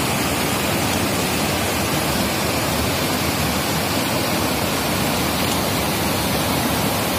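Fast-flowing mountain stream rushing, a steady, even noise with no breaks.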